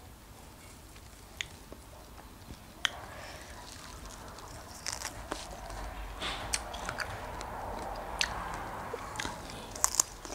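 Fresh strawberries being bitten and chewed, with scattered sharp mouth clicks, busier and louder in the second half.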